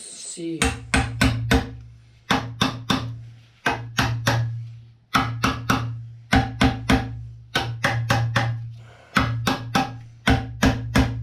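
Background music: short repeated phrases of sharp plucked notes over a steady low bass note, coming back about every second and a half.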